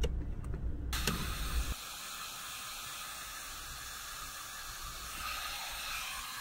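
Hair dryer switched on about a second in, then blowing with a steady, even hiss.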